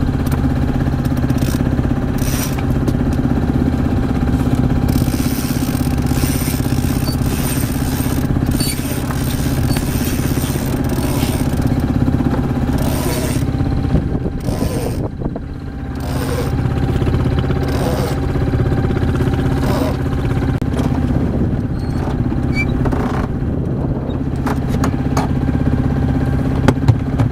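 A boat's engine running steadily, easing off briefly about halfway and then picking up again.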